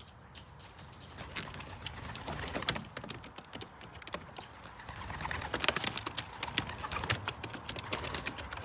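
Racing pigeons cooing, over many light taps and clicks as they walk and move about on the loft roof.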